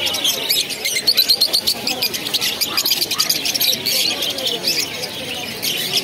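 A cage crowd of lovebirds chattering: a continuous stream of rapid, high, squeaky chirps, with people's voices in the background.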